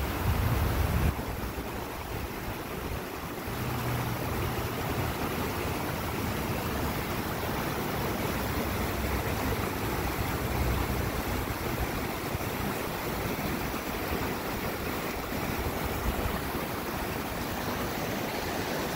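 Steady rush of a fast, shallow river running over rocks in rapids.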